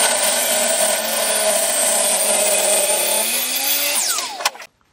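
Bench-top table saw ripping a thick block of beech lengthwise: the blade and motor run loud and steady, the pitch wavering as the wood feeds through, then the sound cuts off suddenly near the end.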